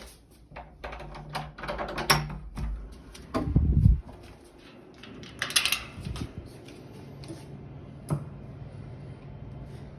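Knocks, clatter and bangs carried through the building from another flat, with a heavy low thud about three and a half seconds in and a single sharp knock later, over a faint steady hum.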